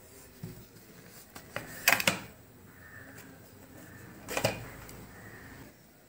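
A plastic plate and cake tin knocking together as a steamed cake is flipped out of its tin onto the plate. There are a few small clicks, a sharp clatter about two seconds in, and another about four and a half seconds in.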